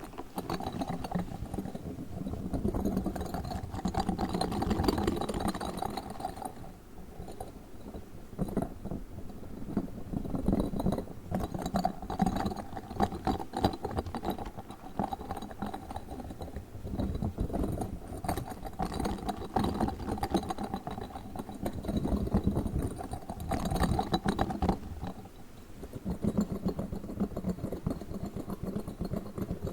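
Pink spiky ball handled close to the microphone: a dense, rapid crackling and rubbing that comes in swells of a few seconds at a time.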